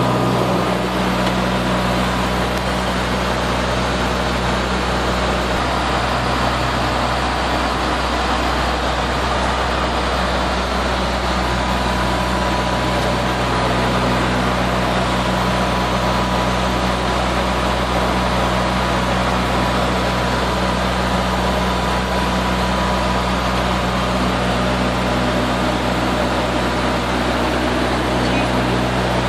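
Steady drone of a turboprop airliner's engines and propellers in cruise, heard from inside the cockpit, with a constant low hum and a thin high whine.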